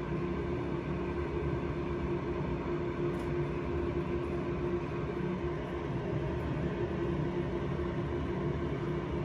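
Steady machine hum with one constant mid-pitched tone over a low noise bed.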